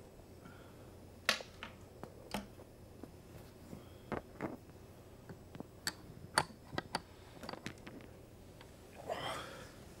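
Irregular sharp clicks and small knocks, about a dozen spread unevenly, from a man handling things and shifting in bed close to a clip-on microphone, with a short breathy rustle about nine seconds in.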